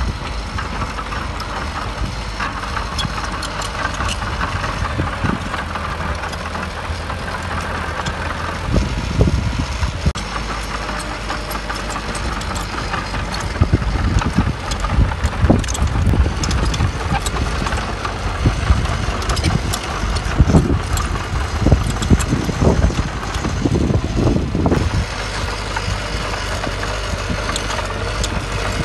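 Heavy earth-moving machine's diesel engine running steadily. From about a third of the way in until a few seconds before the end, many knocks and clatter of rock and metal sound over it.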